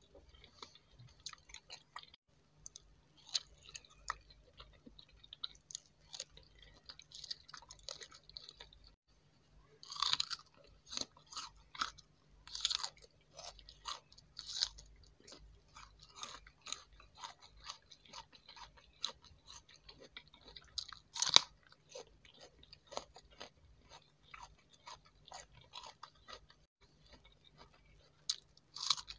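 Close-miked chewing of crisp raw fruit in small bites: many short, crackly crunches and wet mouth sounds, with a few louder crunchy bites.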